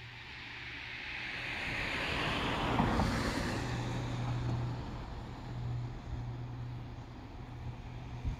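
A road vehicle passing close by, its noise swelling to a peak about three seconds in and then fading, with wind on the microphone and a low steady hum underneath.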